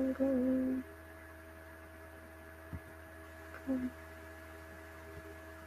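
Steady low electrical hum with a few faint steady tones on the recording. In the first second a voice makes a short flat-pitched hum in two parts, with a shorter one a little before four seconds in.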